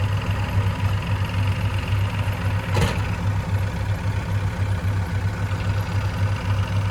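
Heavy vehicle's diesel engine idling with a steady, even low pulse, and one sharp click or knock about three seconds in.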